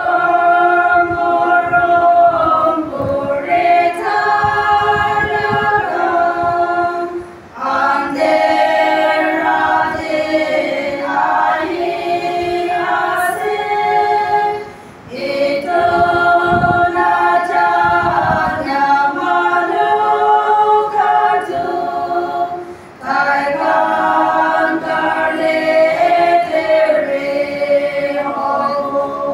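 Women's choir singing unaccompanied, with a short break between phrases about every seven or eight seconds.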